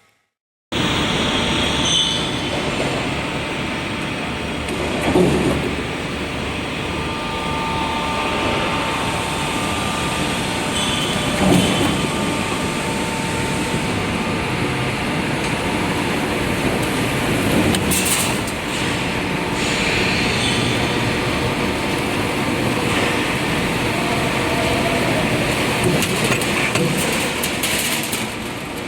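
Cable tray roll forming line running: a steady mechanical rumble and rattle, with a few louder clanks along the way.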